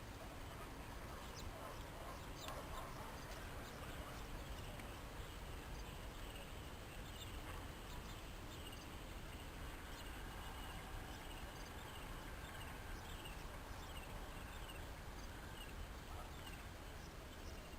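Guinea pigs squeaking faintly: many short, high squeaks, coming thicker in the second half, over a steady low rumble of background noise.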